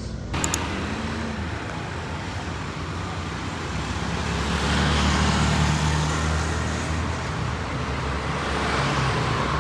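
Road traffic on a city street. A motor scooter passes and grows loudest about halfway through, and a car goes by near the end.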